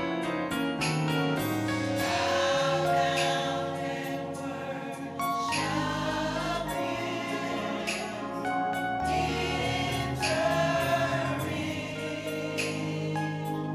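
Gospel choir singing with instrumental accompaniment, voices holding long notes over a steady bass line.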